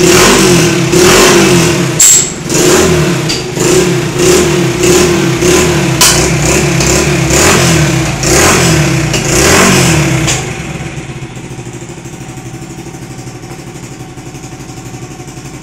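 Honda Biz C100's small single-cylinder four-stroke engine, running a CG 125 carburettor and an exhaust popper ('estralador'), blipped over and over with the revs rising and falling about once a second and a few sharp pops among them. About ten seconds in it drops to a steady, even idle.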